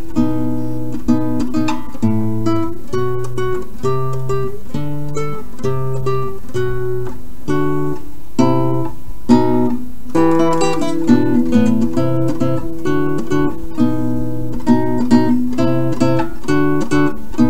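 Acoustic guitar music: a steady flow of plucked and strummed notes over a low bass line.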